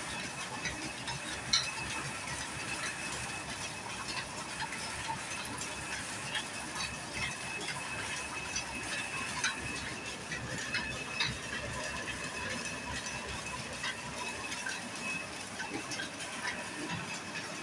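Mustard oil expeller (screw press) running steadily: a continuous mechanical clatter with a steady high whine and scattered sharp ticks, the sharpest about a second and a half in.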